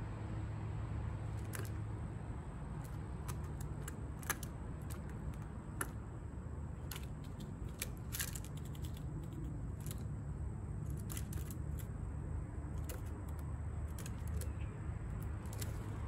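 Irregular light clicks and taps: a blue jay handling in-shell peanuts on a plastic tray feeder, over a steady low hum.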